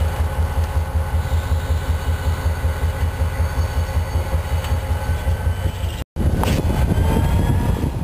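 EMD SD45 locomotive's 20-cylinder two-stroke diesel engine throbbing as the locomotive moves slowly over a newly installed track switch, with a steady pulsing low rumble. The sound cuts out for an instant about six seconds in, then comes back louder, with faint high squeals.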